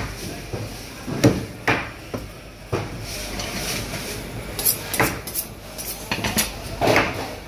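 Irregular knocks and metallic clinks of steel knives against a wooden chopping block, about half a dozen sharp strikes with a run of lighter clicks in the middle.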